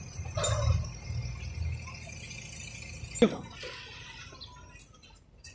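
JCB backhoe loader's diesel engine running as it works through brick rubble, fading after about two seconds. A single sharp click about three seconds in is the loudest sound.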